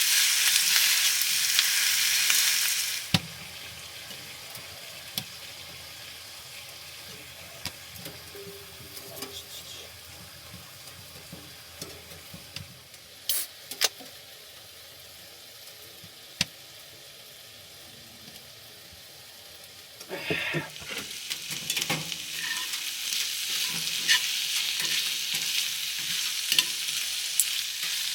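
Food frying and sizzling in a pan. The sizzle drops away about three seconds in, leaving a quiet stretch with a few scattered clicks and knocks, and it returns loudly about twenty seconds in.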